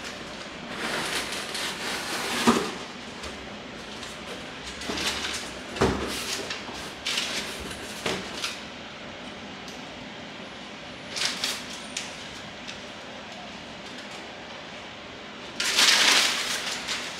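A cardboard box being unpacked: packing tape slit with a knife and flaps pushed open, with a few sharp knocks, then crinkled kraft packing paper rustled and pulled out in several bursts, loudest near the end.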